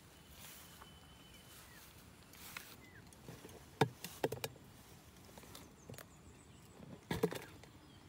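Sharp clicks and knocks from a plastic insect box being handled at its lid as a grasshopper is put inside: a cluster a little before halfway and another near the end.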